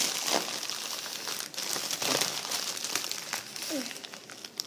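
Plastic marshmallow bag crinkling and rustling as a hand works at its opening and reaches in for a marshmallow, in a run of short crackles.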